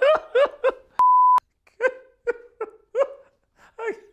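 A man laughing in a run of short, high-pitched bursts about three a second. About a second in, a single steady censor-style beep cuts in for under half a second.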